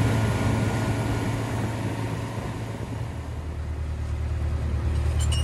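A steady low engine drone with a haze of noise over it. It eases off around the middle and builds up again near the end.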